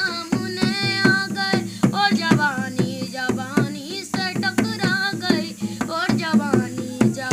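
A boy sings a song, his voice rising and falling in long held notes. A dholak, a two-headed rope-tensioned barrel hand drum, is beaten by hand alongside him in a steady rhythm.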